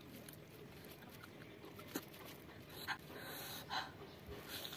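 Faint sounds of eating by hand: fingers squeezing and mixing rice with stew, with a few short, soft mouth noises.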